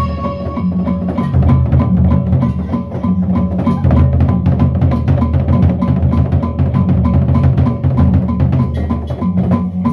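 Gendang beleq ensemble playing. The large double-headed barrel drums beat under a fast, dense run of clashing hand cymbals and gongs. A held tone fades out about half a second in.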